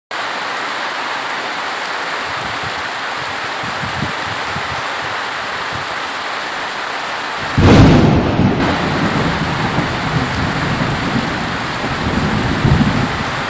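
Steady heavy rain, with a sudden loud thunderclap a little past halfway that rolls on as a rumble.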